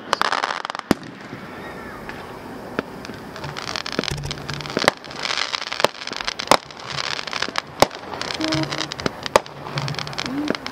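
Consumer firework cake firing: a string of sharp pops and bangs, about a dozen spread irregularly, with crackling between them as the shots launch and burst.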